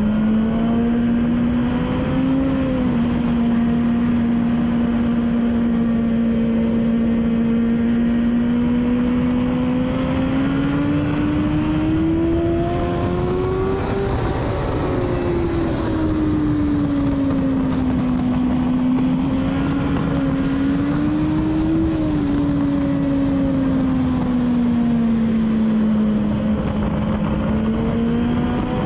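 BMW S1000RR inline-four with an Akrapovic exhaust running at track speed, its pitch climbing steadily to a peak about halfway through as the bike accelerates, then falling as it slows for a corner, with small rises and dips and a final rise near the end. Wind rush runs underneath.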